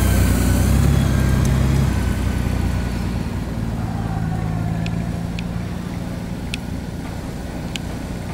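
Honda Gold Wing's flat-six engine running at low speed as the touring motorcycle rolls slowly, a steady low hum that fades after about two seconds as the bike moves away. A few faint clicks come in the second half.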